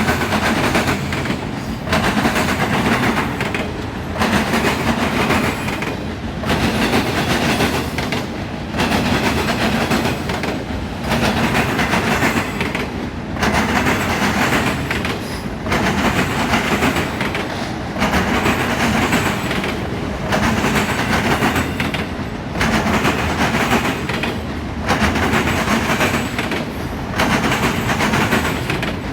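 Freight train of auto rack cars rolling past, wheels clattering over the rails. The noise swells and dips in an even rhythm about every two seconds as each car goes by.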